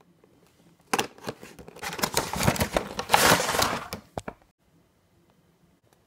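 Toy packaging being handled and opened by hand: crinkling, tearing and scattered clicks lasting about three and a half seconds, starting about a second in.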